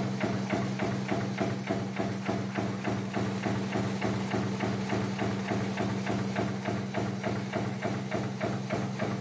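Razor barbed tape production machinery running: a rapid, even clacking of about five or six strokes a second over a steady motor hum.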